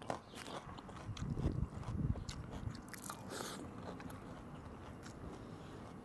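Close-miked chewing and crunching of a mouthful of raw bitter gourd and other food, with many short sharp crunches and mouth clicks, loudest between about one and two seconds in.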